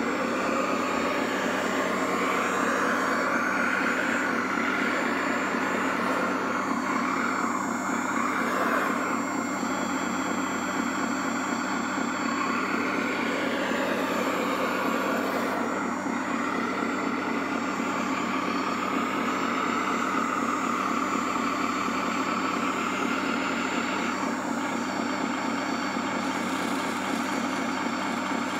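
Radio-controlled scale LiuGong wheel loader model working: a steady engine-like hum with a whine above it that rises and falls as the loader drives and raises its bucket.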